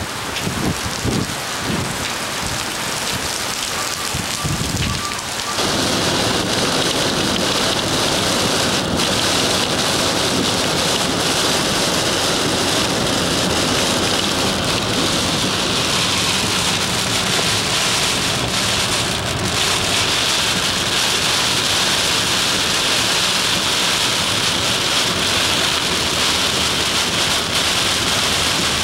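Heavy tropical-storm rain with wind gusting and buffeting the microphone. About five seconds in, the sound changes abruptly to a steady, dense rain hiss, heard from a car driving through the downpour.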